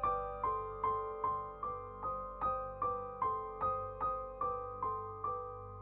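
Background music: a piano playing a steady run of single notes, about two or three a second, each ringing out and fading before the next.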